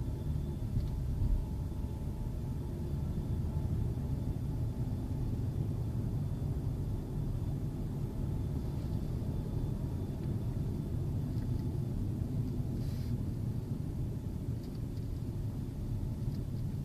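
Steady low road and engine rumble inside a Kia K9 sedan's cabin while driving, with a faint thin high tone running under it and a brief faint hiss about 13 seconds in.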